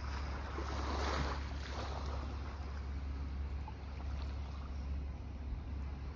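Wind buffeting the microphone, with surf washing on the shore underneath, louder about a second in.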